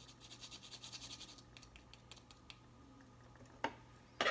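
Whole nutmeg scraped on a small hand grater in quick, even strokes, several a second, stopping about a second and a half in. A few faint ticks follow, and a light clack sounds near the end.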